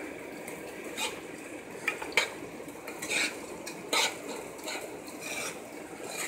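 A metal spoon stirring thick, freshly made refried beans in a metal pot, with short scrapes and knocks against the pot about once a second.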